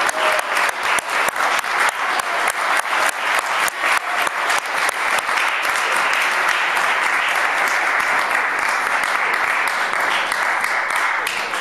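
Audience applauding, with many sharp single claps standing out in the first half before the clapping blends into an even wash.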